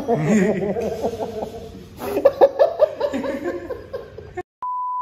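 People laughing and chuckling in short, pulsing bursts, cut off suddenly about four and a half seconds in; a steady electronic beep tone then starts.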